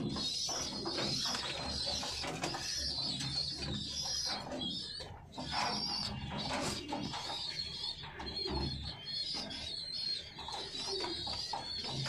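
Pigeons cooing in a loft, low repeated coos, with a high wavering chirping going on throughout.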